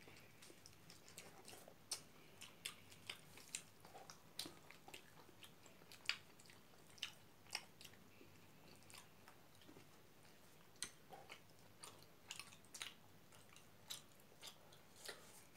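Quiet eating sounds of people chewing rice and pork curry eaten by hand: irregular soft wet clicks and smacks, about one or two a second.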